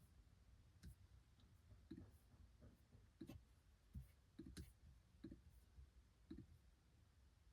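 Logitech Pop Keys mechanical keyboard being typed on slowly: faint, irregularly spaced keystrokes, roughly one or two clicks a second, a pair close together midway.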